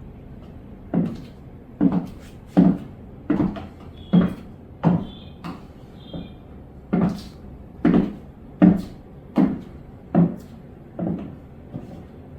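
Footsteps of 6-inch platform high heels walking on a hard floor: a heavy step about every 0.8 seconds, pausing for about two seconds midway before the steps go on.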